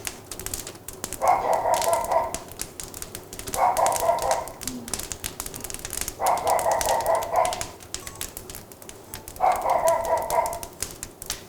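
Logs burning in a wood-fired porcelain kiln, crackling and popping throughout. Over the crackle come four louder tone-like sounds of about a second each, roughly every two and a half seconds, from an unclear source.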